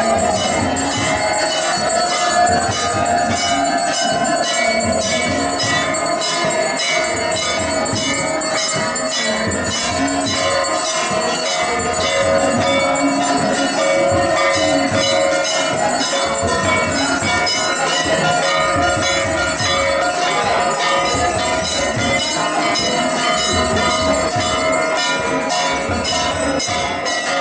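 Temple bells ringing continuously in a rapid, even rhythm, mixed with devotional music.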